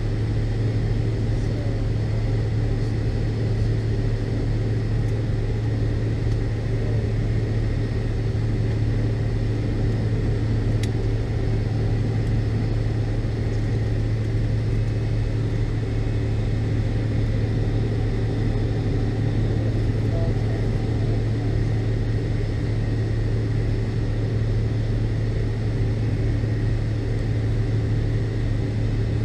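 Cabin noise inside a McDonnell Douglas MD-82 airliner: a steady low drone with a strong even hum, unchanging throughout.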